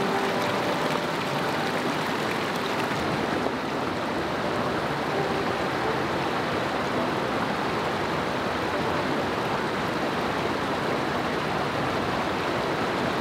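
Mountain river water rushing over rocks: a steady, even rush of water, a little duller from about three and a half seconds in.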